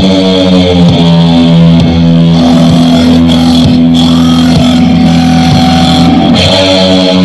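Loud distorted electric guitar music: long held notes with a pitch bend about six seconds in.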